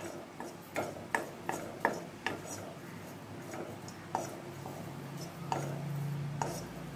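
Wooden spatula stirring garlic cloves in a dry nonstick pan for dry-roasting, with no oil and so no sizzle: light, irregular clicks and knocks as the cloves and spatula tap the pan, about two a second at first, then sparser. A low steady hum comes in about halfway through.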